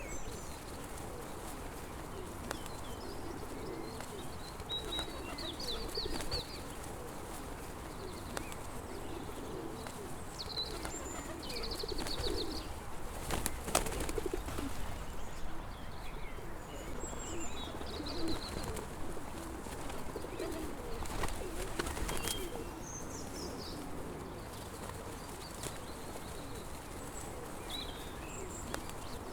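Pigeons cooing continuously, with small birds chirping now and then. A couple of brief sharp clatters come near the middle.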